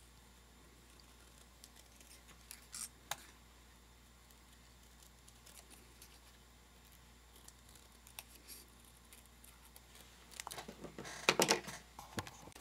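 Small scissors snipping paper: a few scattered snips, then a busier, louder run of cutting and handling near the end.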